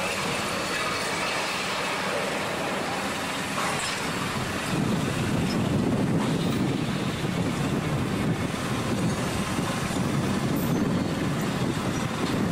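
A steady engine rumble, growing louder about five seconds in.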